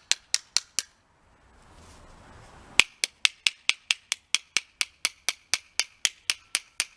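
A Bissell vacuum's paper-like filter being banged against a hard surface to knock the dust out: rapid, evenly spaced sharp taps, about four or five a second. There is a brief pause with a soft hiss about a second in, then the taps resume.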